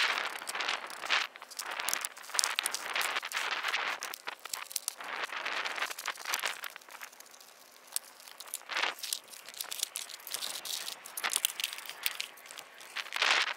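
Foam RC plane parts being handled and packed into a hard carrying case: irregular rustling and crinkling of foam against foam and case, with many small sharp clicks, dipping quieter partway through.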